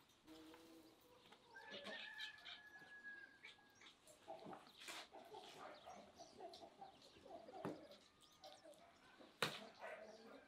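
Faint chicken and bird calls, with scattered taps and clicks of a knife on a wooden cutting board; the sharpest click comes a little before the end.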